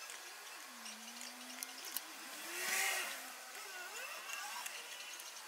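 A vehicle engine passing, faint, its pitch rising and falling and loudest about halfway through. A few light clicks of a wooden stick against a metal tin.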